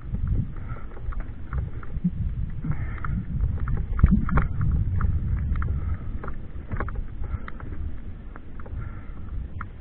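Wind rumbling on the microphone during fast movement down a trail, with many irregular clicks and rattles.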